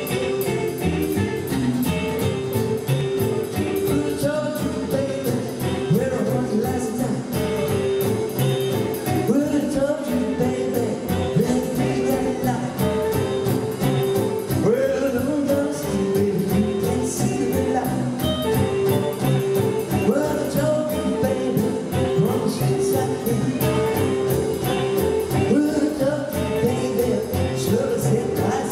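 Live rockabilly band: a male singer singing over electric guitar and a drum kit, with a steady, driving beat.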